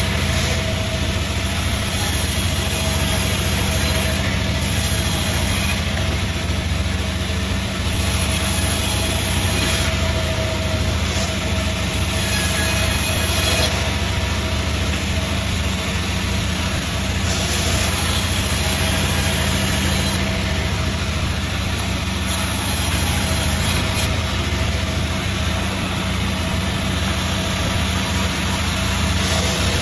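A 36-blade gang-rip sawmill running with a steady, loud machine hum.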